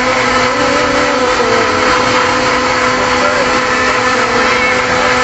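A small electric motor whirring steadily at a constant pitch, with a continuous hissing noise over it.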